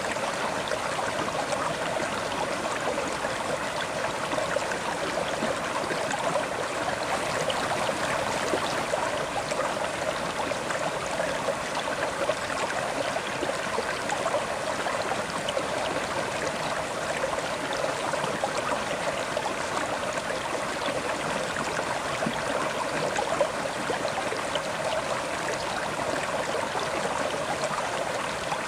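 River water flowing and splashing steadily over rocks, with fine bubbling and gurgling throughout.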